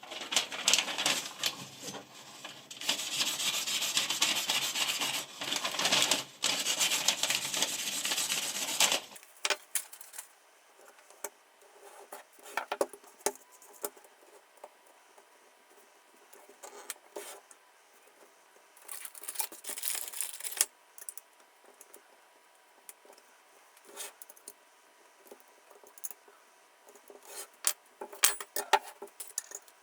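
Sharpening stone of a guided rod knife sharpener rubbing along a steel kitchen knife blade in rapid back-and-forth strokes for about nine seconds. Then light clicks and taps of handling, with another short run of stone strokes around twenty seconds in.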